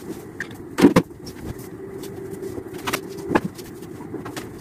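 A bedsheet being spread and smoothed over a bed: cloth rustling with a few soft thumps, the loudest about a second in. A steady low hum runs underneath.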